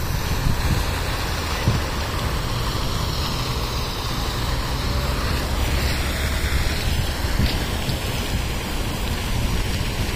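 Steady hiss of a plaza fountain's jets splashing down into their basin.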